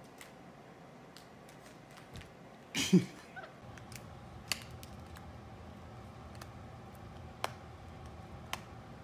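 Scattered sharp clicks and taps as a capuchin monkey handles and mouths a small hard red object. The loudest is a short knock with a brief low sound about three seconds in, followed by single clicks a few seconds apart.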